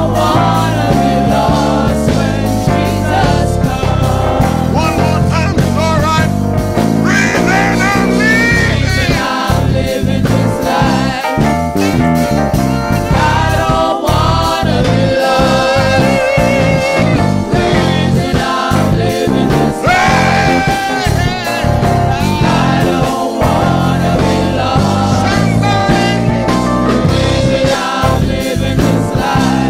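Small gospel vocal group singing together into microphones over instrumental accompaniment, at a steady, loud level.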